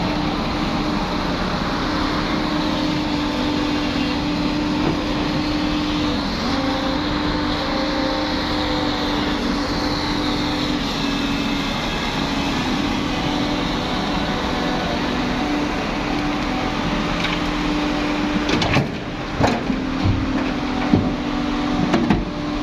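Hyundai crawler excavator's diesel engine and hydraulics running steadily with a constant hum. Several sharp knocks and clanks come near the end.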